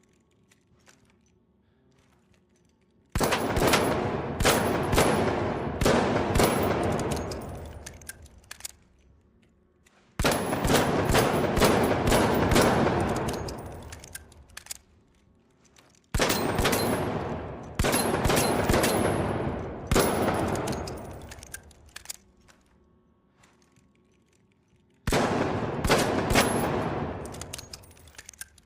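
.357 snub-nose revolver sound effect: four volleys of several shots fired in quick succession, each dying away in a long echo, with quiet gaps between.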